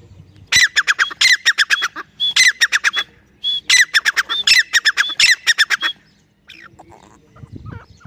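Grey francolin calling in two loud bouts of rapid, harsh, repeated notes, each note sliding down in pitch. Each bout lasts about two to three seconds, and the calling stops about two seconds before the end.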